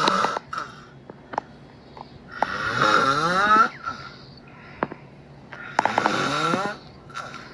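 Snoring: a snore about every three seconds, each about a second long and rising in pitch, with a few faint clicks in the pauses.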